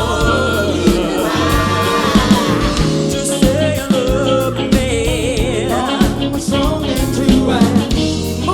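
Live soul band playing with singers holding long, wavering notes and quick wordless runs over bass and drums.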